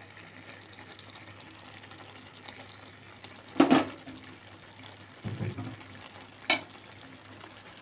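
Curry simmering in a kadai, a low steady bubbling, broken by a few brief knocks. The loudest knock comes about three and a half seconds in, and a sharp click follows about three seconds later.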